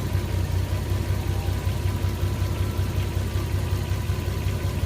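Toyota Supra MA70's engine idling steadily while warming up, its cooling system open for bleeding air from the radiator.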